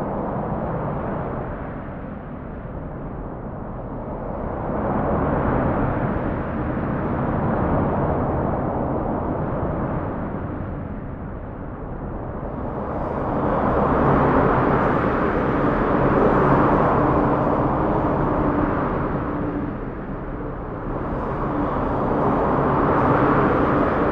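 Rushing noise that swells and fades in slow waves every six to eight seconds, with a low steady hum underneath.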